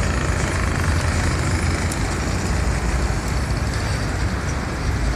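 Road traffic passing close by: a box truck and cars, a steady low engine rumble under tyre noise.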